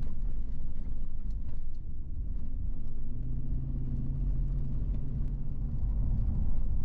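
A 2011 Chevrolet Silverado 1500 pickup with a 5.3-litre V8 cruising on a highway while towing: a steady low rumble of engine and road noise. A humming drone comes in about three seconds in and fades a couple of seconds later.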